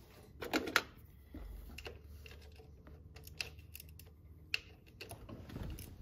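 Scattered sharp metal clicks and taps of hand tools on the rocker arms, with a quick loud cluster about half a second in, during a valve lash adjustment on a solid-roller cam engine.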